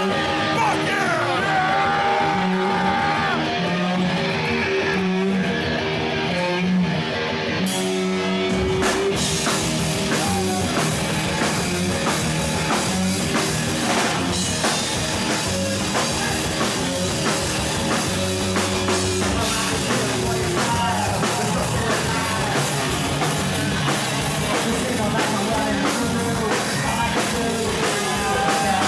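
Live rock band playing with electric guitar, drum kit and vocals. It opens thinner, and the full band with drums comes in about eight seconds in.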